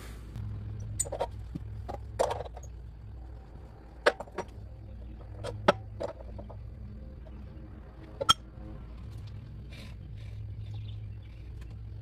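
Sped-up sounds of hand work on a bandsaw mill's log bed: scattered short knocks and clicks of wood and metal being handled, over a steady low hum.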